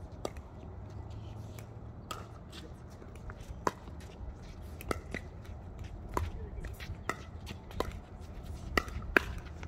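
Pickleball paddles striking the plastic ball during a rally: a string of sharp hollow pops about once a second, the loudest near the end.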